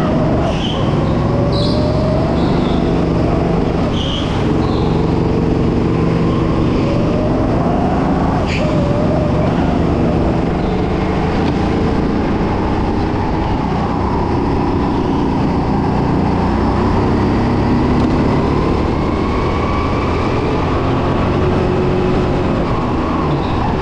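Racing kart's engine running under a driver's onboard camera, its note rising and falling with throttle through the corners, with a few short high chirps and one brief knock in the first ten seconds.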